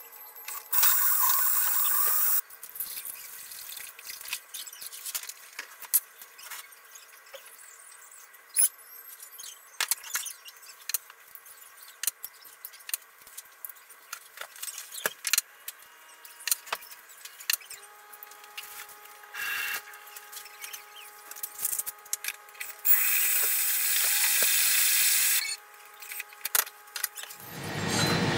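Thermomix food processor whirring briefly as it blends crêpe batter, a loud rush about a second in, followed by scattered clicks and clatter of kitchen work. Another loud rushing noise comes near the end.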